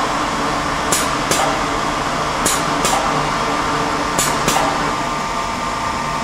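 Steady machine hum with a constant high tone from a Tsugami SX20-C CNC Swiss-turn lathe and its open electrical cabinet. Three pairs of short, sharp hisses break in about every one and a half seconds.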